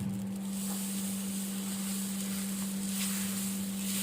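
Mullu murungai leaf dosai sizzling on a hot griddle as it crisps, a steady hiss that grows about half a second in, over a constant low hum.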